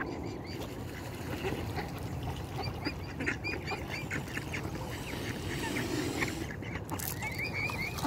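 Waterfowl calling: runs of short, high, arched calls a few per second, one bout about three seconds in and another near the end, over a steady low background rumble.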